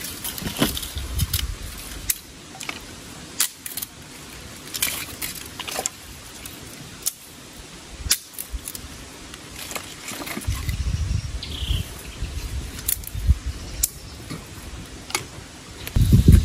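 Light clatter and scattered sharp clicks of sticks and firewood being handled to rekindle a campfire. Low rumbling bursts come in the last few seconds.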